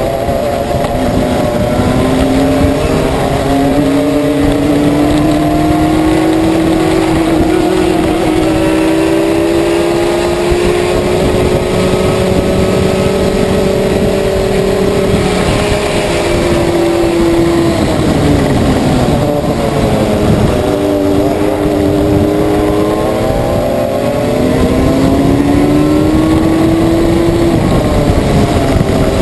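Go-kart engines at racing speed, the pitch climbing steadily along the straights. About two-thirds of the way through it drops sharply as the kart slows for a corner, then climbs again.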